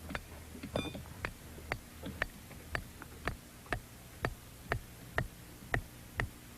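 Steady ticking, about two ticks a second, over a faint low hum.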